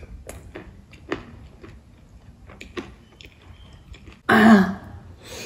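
A woman chewing a mouthful of pani puri, with a few faint crunching clicks. About four seconds in comes one short, loud throaty burst from her, a noisy rush ending in a brief falling pitch.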